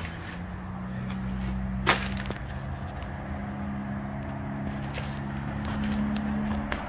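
Footsteps on an old wooden floor littered with debris, with one sharp crack about two seconds in and a few lighter knocks later, over a steady low hum.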